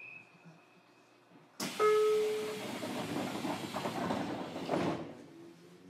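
JR Kyushu 303 series electric train, heard on board: a sudden loud hiss of compressed air, lasting about three seconds, as the doors close before departure.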